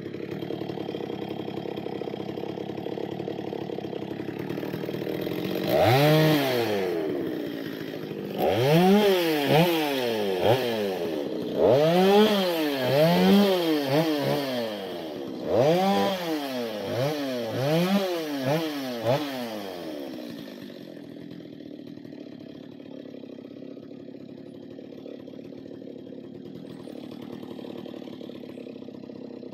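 Stihl 023 two-stroke chainsaw idling, then revved up and down in quick succession about ten times over some fourteen seconds while it works on a spruce log, before dropping back to a quieter idle.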